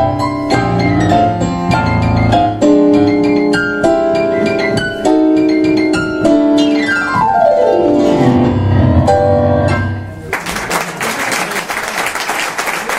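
Tango piano duet on two digital stage pianos, one a Kawai MP6, ending in a fast descending run and a final chord about ten seconds in. Audience applause follows.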